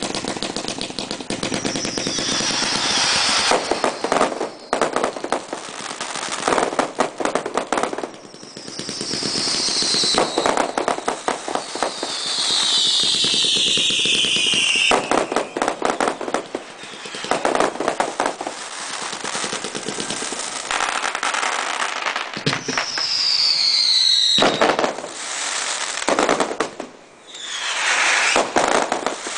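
Ultimate Devastation 200-shot finale cake firing a rapid barrage: a dense, machine-gun-like run of shots and bursts with crackle and several whistling tones that fall in pitch. It eases off briefly about a third of the way in and again near the end.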